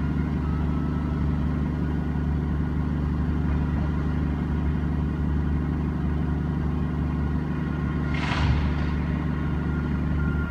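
Engine running steadily with a low, even drone, and a short hiss about eight seconds in.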